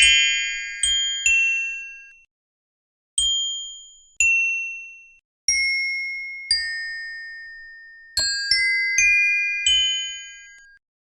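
Bell-like chime tones struck one after another, about ten strikes in small groups. Each strike rings out and fades over a second or two, with dead silence between the groups.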